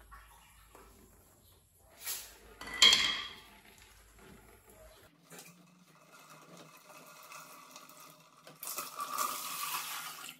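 Clattering knocks of a rubber strap wrench and its wooden lever against a plastic water-filter housing, twice, the second louder. Near the end comes a steady hiss of water spilling as the housing bowl is unscrewed and comes off.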